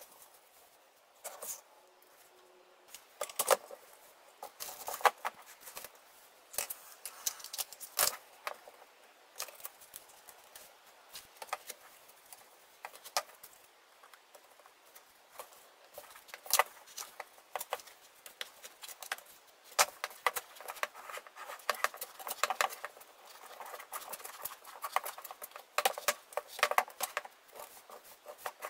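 Handling noise: cross-stitch fabric rustling while the wooden rods of a scroll frame are laid on it and moved about, giving irregular clicks and taps throughout.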